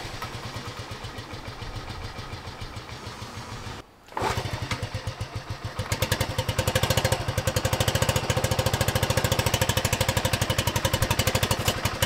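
1978 Honda Z50's small single-cylinder four-stroke engine running on choke just after being kick-started, an even rapid putter. After a short break about four seconds in it runs again, getting louder and quicker from about six seconds in and holding steady.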